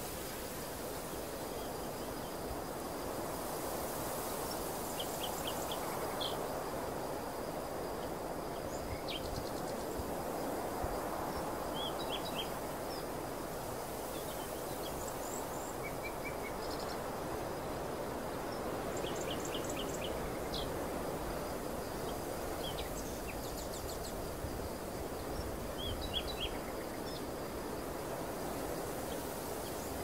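Open-air ambience: a steady rushing noise that slowly swells and fades, with small birds chirping in short quick series every few seconds.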